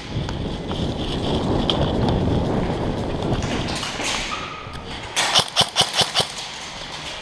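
Muffled rumble and scuffing of a player moving with an airsoft rifle. A little after five seconds in comes a rapid string of about six single airsoft rifle shots, roughly five a second.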